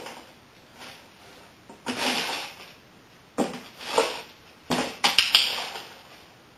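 A dog stepping in and around a low box on a tile floor, with several short bursts of scraping and rustling as its paws shift the box.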